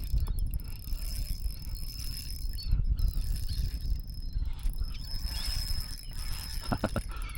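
Wind rumbling on the microphone, with a thin steady high whine throughout. A brief cluster of three or four quick pitched calls comes near the end.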